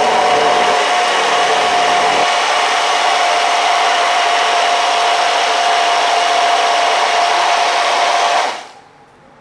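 Immersion hand blender running at top speed, held still at the bottom of a plastic blending beaker, emulsifying egg, garlic, lemon juice and sunflower oil into alioli. A steady motor whine that stops about 8.5 seconds in.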